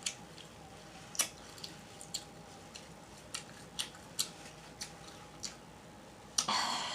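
A person chewing seafood meat with the mouth open, close to the microphone: faint smacking clicks every half second to a second, then a longer, noisier mouth sound lasting about half a second near the end.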